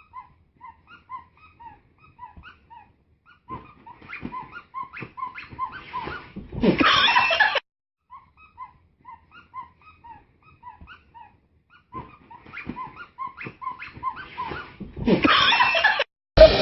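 A dog whimpering in short, high whines, a little under two a second at first and then quicker, breaking into a louder, harsher outburst about a second long. The same run of whines and outburst comes again.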